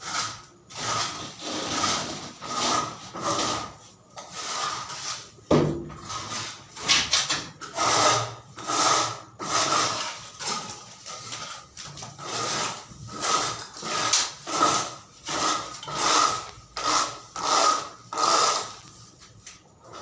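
A hand tool worked on wood in steady back-and-forth strokes, about one and a half a second, with a single sharp knock about five and a half seconds in.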